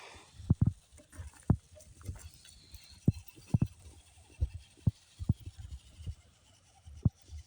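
Irregular dull thumps and knocks from an RC scale truck, roughly one or two a second and uneven in strength.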